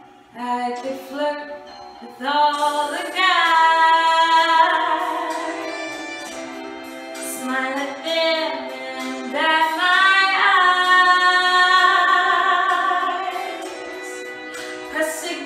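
A woman singing solo without accompaniment, with two long held notes, one starting about two and a half seconds in and the other about ten seconds in.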